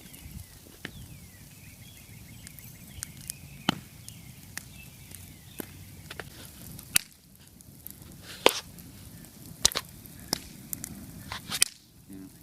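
Scrap-wood fire in a fire pit crackling, with sharp, irregular pops every second or so over a low steady rumble; the loudest pops come about 8 and 11 seconds in.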